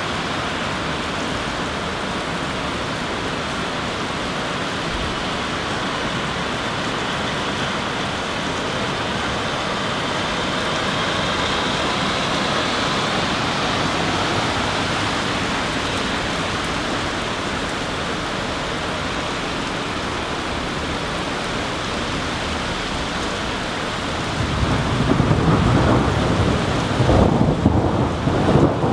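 Steady heavy rain falling on leaves during a thunderstorm. Near the end, a low thunder rumble rises under it and grows louder.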